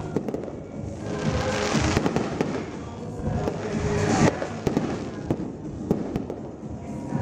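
Aerial fireworks shells bursting, a quick run of sharp bangs and crackles with louder bursts about two and four seconds in.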